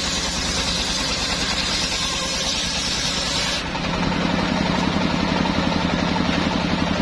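Engine-driven, shop-built circular sawmill ripping a hardwood slab: a loud, dense cutting noise from the blade in the wood over the steady running engine. About three and a half seconds in, the cutting noise stops suddenly as the piece clears the blade, leaving the engine and the freely spinning blade running with a steady, fast-pulsing hum.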